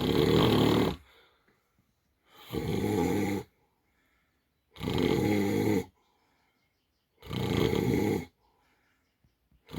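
A man snoring heavily in his sleep, one loud snore about a second long every two and a half seconds, with faint breaths in between.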